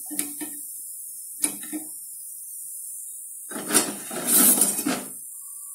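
Steel slotted spoon knocking and scraping against a steel kadhai and plate as fried chakli are lifted out of the oil and set down: two light knocks, then a longer clatter about three and a half seconds in.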